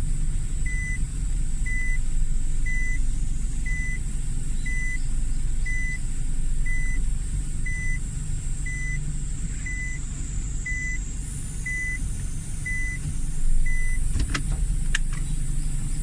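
Nissan NV350 Caravan van moving at low speed in reverse: a low, steady engine hum under a high reverse warning beep that sounds about once a second, then stops near the end and is followed by two sharp clicks.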